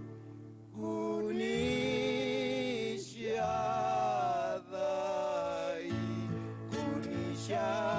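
A slow folk song sung in Zapotec with acoustic guitar accompaniment. The singer holds long notes with vibrato, phrase after phrase, over plucked bass notes.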